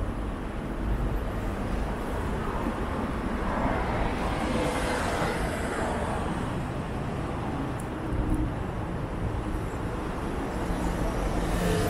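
City road traffic: a steady rumble of passing vehicles, with one passing closer and louder about four to six seconds in.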